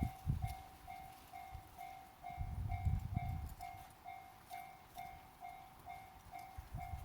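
Japanese railway level-crossing warning alarm ringing, a clanging electronic tone repeating evenly about twice a second. A low rumble swells and fades in the middle.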